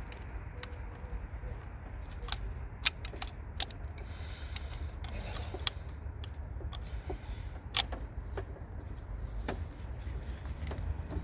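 Scattered sharp clicks and taps of small plastic and metal parts, with short bouts of rustling and scraping, as hands work the door-handle cable onto a car door lock mechanism inside the door. A steady low hum runs underneath.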